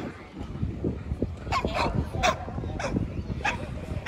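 American Pit Bull Terriers barking and yipping: a run of about five short, sharp barks spread over two seconds.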